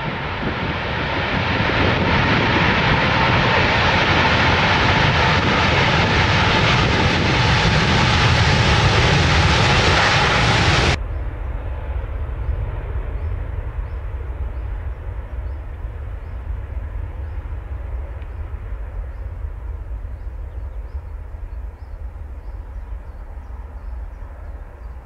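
Airbus A380 jet engines running at high power as the airliner rolls down a wet runway: a loud, even roar with a faint steady tone in it. About 11 s in it cuts off suddenly to a quieter, deep rumble from another A380 on its takeoff roll, slowly fading toward the end.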